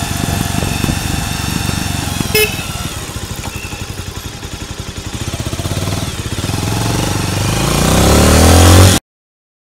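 Motorcycle engine and exhaust heard up close, running along steadily, then revving higher as the bike accelerates over the last two seconds, loudest just before the sound cuts off suddenly. A short high beep about two and a half seconds in.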